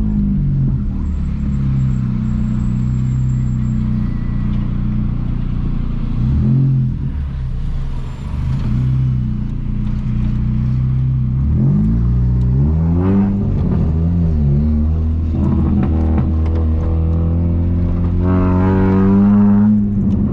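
A 1999 VW Gol 1.0 8-valve four-cylinder engine runs loud through a 4-inch HKS sport exhaust while driving. Its revs dip and climb several times, with a longer climb in revs near the end.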